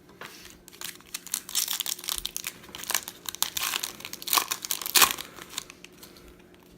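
A trading card pack's plastic wrapper being torn open and crinkled by hand, a dense run of crackles that eases off near the end.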